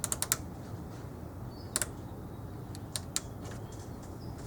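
Front-panel buttons and switches of a Hitachi V-423 oscilloscope clicking as they are pressed: a quick run of four clicks at the start, a single click a little before two seconds in, and two more about three seconds in.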